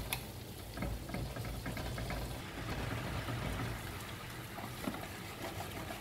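Butter sizzling in a frying pan while a wooden spatula stirs and scrapes through it, with a fine crackle throughout. About four seconds in, a white liquid is poured in from a carton. A steady low hum runs underneath.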